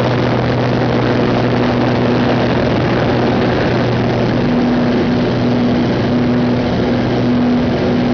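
Pitts S2B biplane's six-cylinder Lycoming engine and propeller droning steadily under heavy wind rush, heard from the cockpit; the engine tone shifts slightly about halfway through as the aircraft banks.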